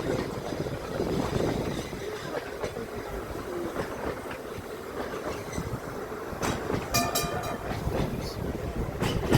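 Narrow-gauge electric tram running on its rails, with steady wheel rumble and clatter, and a brief high ringing sound about seven seconds in.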